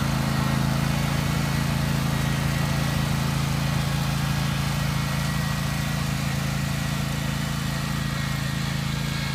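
Craftsman riding lawn mower's engine running steadily as it drives along towing a cart, growing a little fainter toward the end as it moves away.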